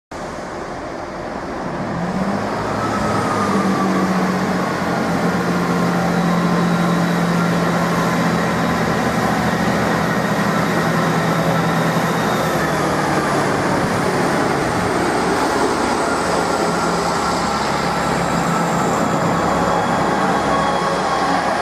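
Train running at a station, a steady mechanical hum with a whine that rises in pitch about two seconds in and falls away again from about twelve seconds in.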